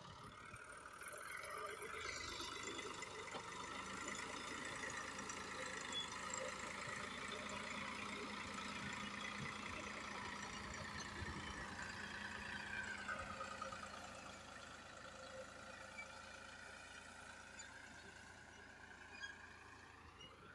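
Massey Ferguson 260 tractor's diesel engine running under load as it pulls a potato planter through damp soil, labouring as the wheels slip. Its pitch sags about two-thirds of the way through and rises again near the end.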